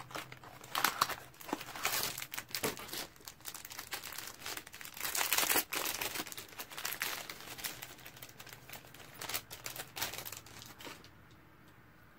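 Packaging of a set of Moda makeup brushes crinkling and tearing as it is opened, in irregular bursts that die down near the end.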